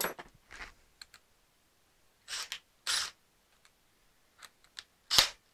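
Hand work with small tools: a few short scraping strokes, the loudest near the end, with scattered light clicks between them.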